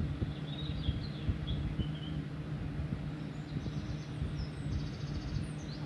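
Steady low hum and background noise, with faint high chirping and short trills about half a second in and again from about three and a half seconds on.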